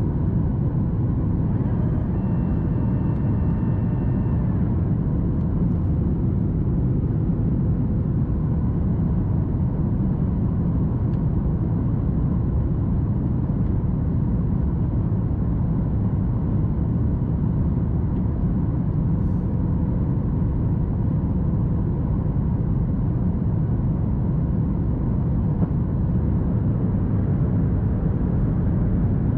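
Steady engine and airflow noise inside the cabin of a Boeing 737 MAX 8, a constant low rumble with a faint steady hum. About two seconds in, a set of higher steady tones sounds for a couple of seconds.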